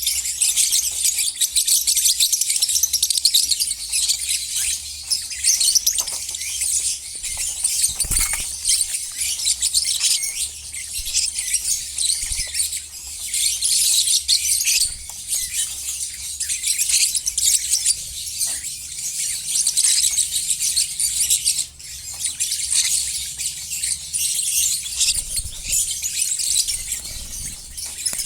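Many lovebirds chattering and chirping together in an aviary: a dense, unbroken high-pitched twittering, with a few faint knocks among it.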